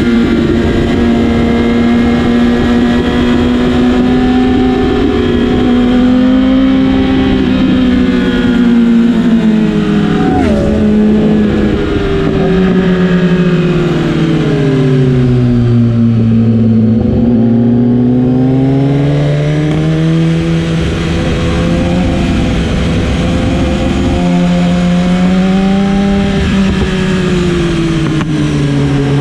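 BMW S1000RR inline-four engine running under way in a low gear. Its revs ease down slowly to a low point about halfway through, climb again, and dip once more near the end, with wind rush over the microphone.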